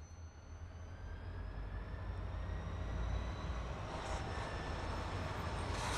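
Diesel locomotive engine running with a steady low rumble that grows louder, with a faint whine drifting slowly higher in pitch.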